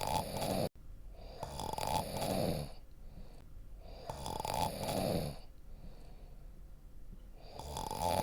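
A person snoring: a rough snore about every three seconds, with quieter breathing in between.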